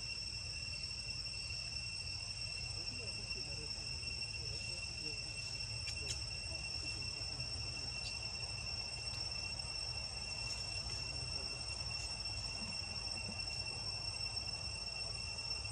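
Insects singing a steady, unbroken high-pitched drone, over a low steady rumble.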